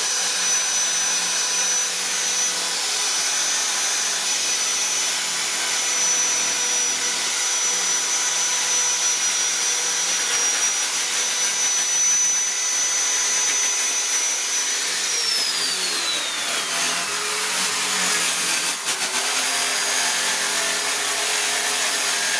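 Handheld electric die grinder with a carving bit running against wood, a steady high whine over grinding noise. About fifteen seconds in the whine falls in pitch over a couple of seconds as the motor slows, while the grinding noise carries on.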